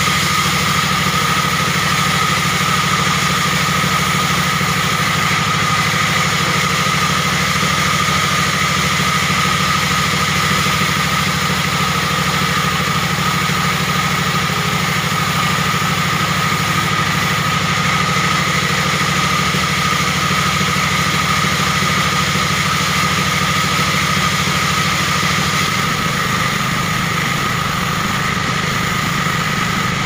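Band saw ripping a log lengthwise, running steadily with a high whine over the throb of the 24 hp Dongfeng diesel engine that drives it.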